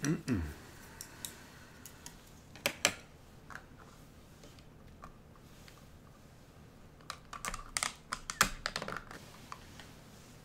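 Light clicks and taps of chopsticks against a plastic sushi platter. A few come about one to three seconds in, and a busier run follows about seven to nine seconds in.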